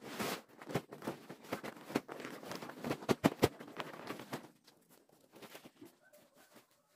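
Plastic tarpaulin rustling and crackling as it is dragged over dirt and folded up, with sharp crinkling snaps; the rustling stops about four and a half seconds in.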